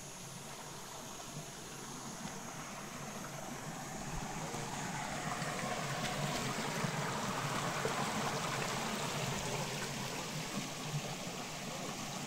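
Mountain spring water running steadily out of a stone spring opening, an even rush that grows louder about four to six seconds in as the spring is approached.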